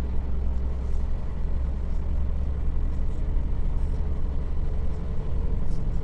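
Steady low drone of a loaded truck's engine and road noise while cruising on the highway, the engine kept on throttle against a strong headwind.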